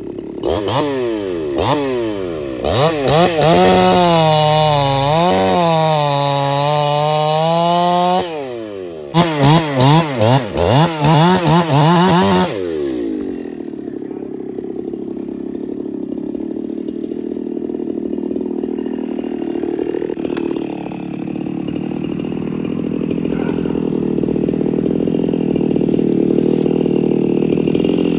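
Two-stroke chainsaw with a freshly sharpened chain cutting a Manitoba maple log. It revs to full throttle and holds there with the pitch wavering as the chain bites, drops off about eight seconds in, then gives a quick string of short throttle blips. From about thirteen seconds in it settles to a lower, steady idle.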